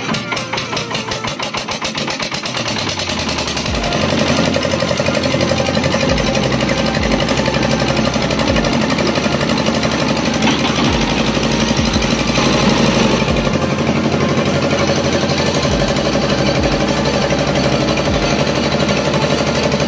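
The stationary engine driving a belt-driven ice crusher starts up, its firing pulses quickening and growing louder over the first few seconds, then runs steadily at speed. Occasional short knocks sound over the engine.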